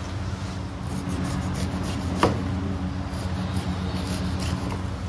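Cleaver slicing the skin off a whole pineapple on a wooden chopping block: faint rasping strokes, with one sharper knock of the blade against the block a little past two seconds in, over a steady low hum.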